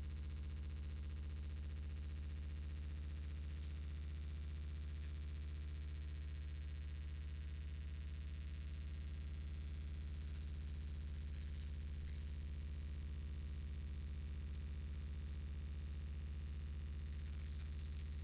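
Steady low electrical hum with a buzzy stack of evenly spaced overtones. A few faint ticks come through, one about three and a half seconds in and a couple near the end.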